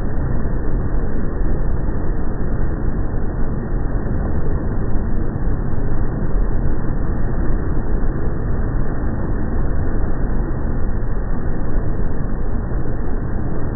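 Motorboat engine and churning wake water heard together as one steady, deep rumble, slowed down by slow-motion playback.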